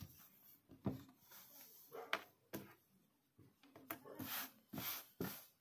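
Shirt fabric rustling and rubbing on a cutting table as hands fold and smooth it flat, in a series of quiet, short swishes.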